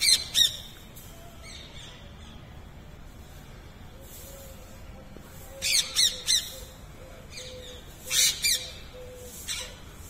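Rose-ringed parakeets screeching in short clusters of two or three shrill calls: one cluster at the start, another about six seconds in, another about two seconds later, and a fainter call near the end. The birds are contesting a nest hole in a wall.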